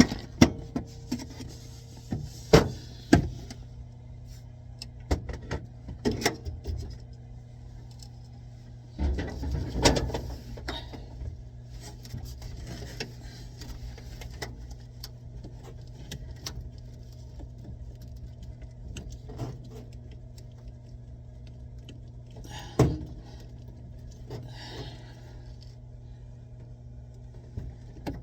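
Scattered clicks, clinks and knocks from handling tools and plumbing parts, some sharp and loud, over a steady low hum.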